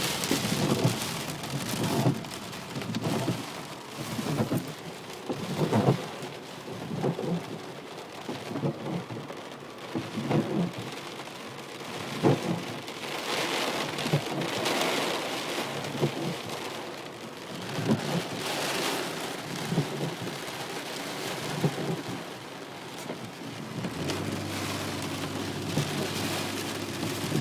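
Heavy rain pouring down, a steady hiss broken by irregular gusty low surges. A steady low hum joins near the end.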